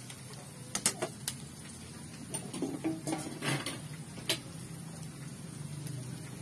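Metal cookware clinking and clattering: a steel pot lid and a slotted metal spoon knocking against pans. A few sharp clinks come about a second in, then a quicker run of clinks from about two to four and a half seconds.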